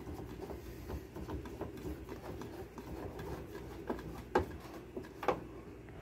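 Screwdriver driving the microwave's top screws back in: a run of faint small ticks and scrapes, with a few sharper clicks about four and five seconds in.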